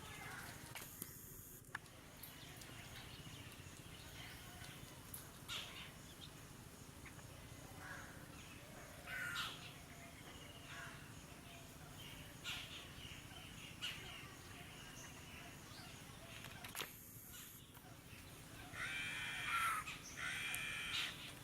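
Crows cawing now and then over faint outdoor background noise, with a louder run of harsh caws near the end.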